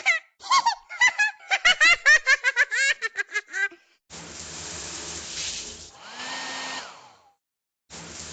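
A voice chanting quick repeated syllables, then a steady whirring noise like a blower, which breaks off briefly near the end and starts again.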